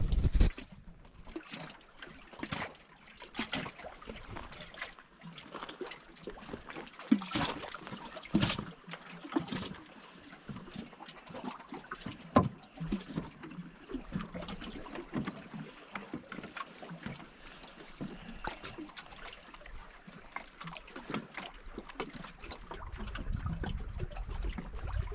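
Small lake waves lapping and splashing irregularly against the shore and a wooden dock. Gusts of wind rumble on the microphone at the start and again near the end.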